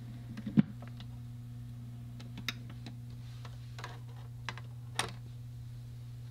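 Vinyl record on a turntable with the stylus in the groove: a steady low hum with scattered, irregular clicks and pops of surface noise. The loudest pop comes just over half a second in, and another about five seconds in.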